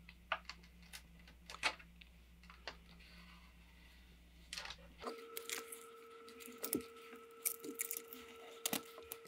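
Faint, scattered crinkles, taps and rustles of transfer tape carrying vinyl decals being handled and pressed down onto a tin tray.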